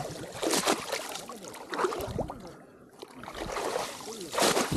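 Water sloshing and splashing around the legs of a person wading through shallow water over deep mud, in three surges with gurgling between.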